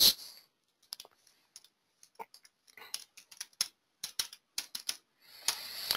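Computer keyboard keystrokes typing a password: irregular single clicks, a few to several a second, for about four seconds. A brief soft rush of noise follows near the end.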